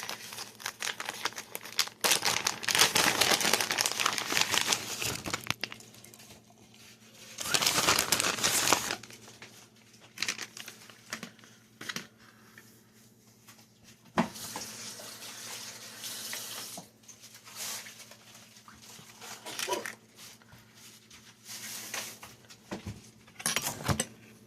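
Plastic bag of cheese crinkling in several bursts of rustling, with small clicks and knocks in between, as cheese is shaken into the egg cooker.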